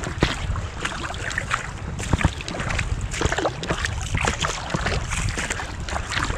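Water sloshing and splashing close to the microphone as a swimmer moves at the surface, with a low rumble of wind and water buffeting the microphone.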